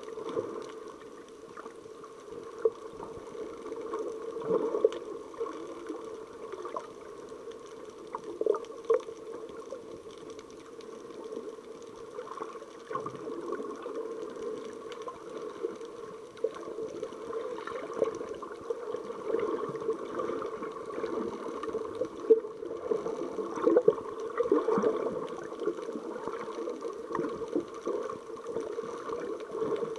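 Muffled underwater water noise picked up by a submerged action camera: a steady dull wash with scattered small clicks and knocks.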